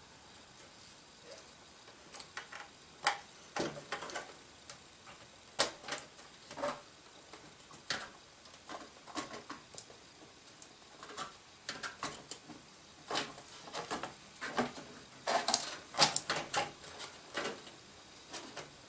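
Irregular light clicks and knocks of a motherboard being handled and lowered into a PC case to line up its ports with the I/O shield.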